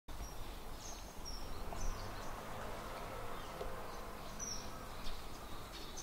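Juvenile common kingfishers giving short, high, thin calls about five times, scattered through, over a steady low outdoor rumble.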